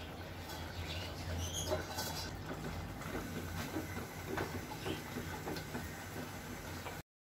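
Thick mutton curry simmering in a nonstick pan, softly bubbling and popping, with a spatula stirring through the gravy and scraping lightly in the pan. The sound cuts off suddenly near the end.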